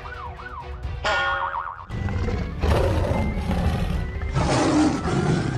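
Cartoon sound effects over background music: a wobbling boing tone rises and falls for about the first two seconds, faster toward the end, then gives way to a loud rushing rumble.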